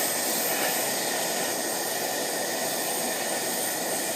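Propane hand torch flame hissing steadily as it heats a fluxed copper pipe joint before solder is fed in.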